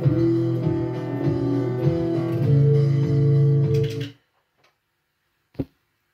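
Electric guitar playing the closing notes of a song and ending on a held chord that cuts off abruptly about four seconds in. Near the end a single short knock.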